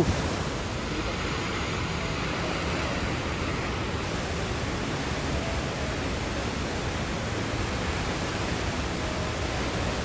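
Kicking Horse River water rushing as it pours through a narrow cut in the rock and drops into a gorge beneath a natural rock bridge: a steady, unbroken rush of whitewater.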